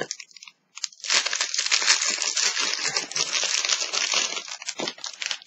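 Small plastic bag crinkling and rustling as it is handled and opened to take out a mochi squishy toy. The rustling starts about a second in after a brief pause and runs in a dense stretch until near the end.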